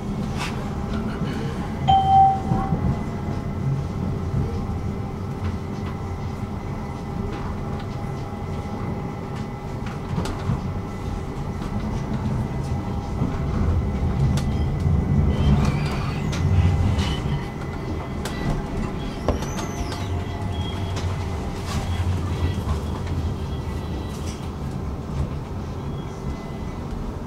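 Stockholm Tvärbanan tram running on its rails: a steady low rumble with a thin, constant whine. A short beep sounds about two seconds in, and a faint high squeal rises and falls about two-thirds of the way through.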